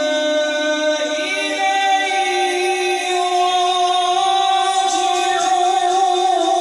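A man reciting the Quran (tilawat) in a melodic, chanted style, holding long notes with the pitch stepping up about a second in.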